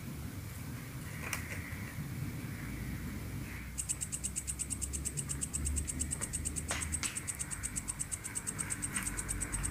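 Cricket chirping in a fast, even pulse that starts abruptly about four seconds in, over a low background rumble.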